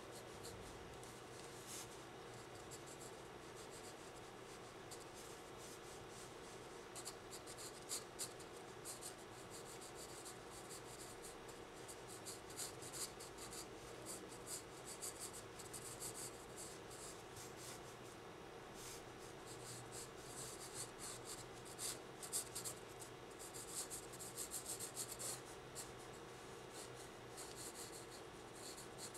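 Graphite pencil scratching on sketchbook paper in irregular runs of quick shading strokes, busier in the second half. A faint steady hum lies underneath.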